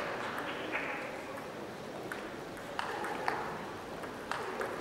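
Table tennis ball struck back and forth in a rally: a string of short sharp ticks as it hits the bats and bounces on the table. A crowd's applause dies away in the first second.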